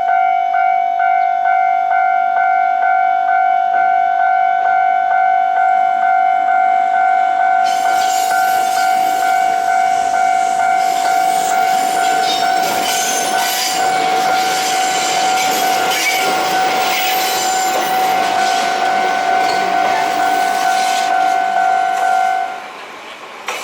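Japanese level-crossing warning bell ringing with an even, repeating electronic clang while a Choshi Electric Railway train passes, its wheels rattling over the rails from about eight seconds in. The bell cuts off suddenly near the end, once the train has cleared the crossing.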